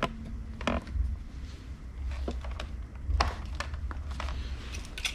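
Handling noise: scattered light clicks and knocks of small metal parts being picked up and set down, over a low rumble.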